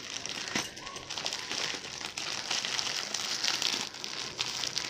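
Parcel packaging crinkling and rustling in irregular bursts as it is handled and opened.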